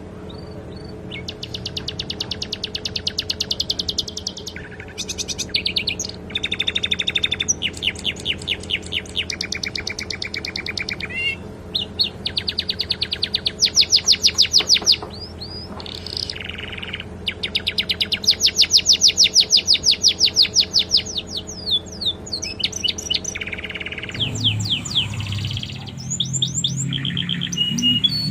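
Domestic canary singing a long song of fast trills and rolls in phrases of one to three seconds, the repeated notes coming about ten a second. The song is filled with phrases learned from the sikatan londo flycatcher. A steady low hum runs underneath.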